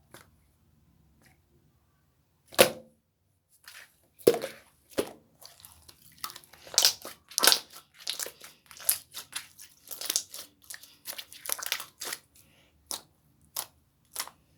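Slime being pressed and folded by hand: a quick string of sharp clicks and pops, starting about two and a half seconds in.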